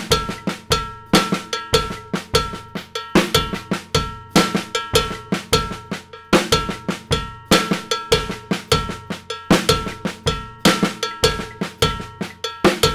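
Drum kit with a cowbell playing a slow Latin-funk groove: cowbell strokes over bass drum and snare, ending each bar with an extra snare note and a pickup note on the cowbell. The pattern repeats about every two seconds.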